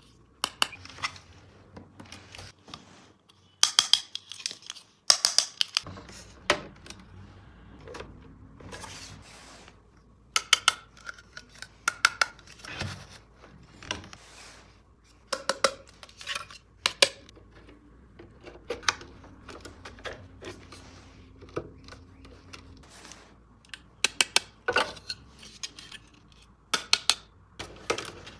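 Hard plastic toy track pieces clicking and clattering as they are handled, with irregular sharp clicks and quick runs of clicks throughout.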